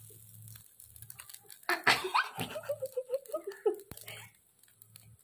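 A person giggling: a short run of quick laughs starting about two seconds in and dying away about two seconds later.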